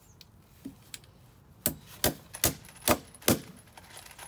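Hammer driving a galvanized 10d nail through a steel joist hanger: a couple of light taps, then five sharp strikes in quick succession, about two and a half a second.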